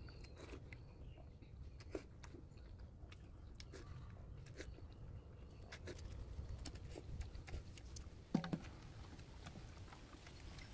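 Quiet eating sounds: a person sipping broth from a ladle and chewing instant noodles, with scattered small clicks and a brief louder slurp about eight seconds in.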